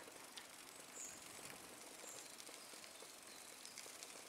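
Near silence: faint outdoor background with a few short, high chirps of small birds, about one and two seconds in.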